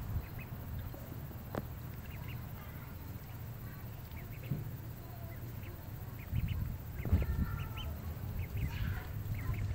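Domestic ducks quacking: short calls scattered through, with a cluster of louder calls about seven seconds in, over a steady low rumble.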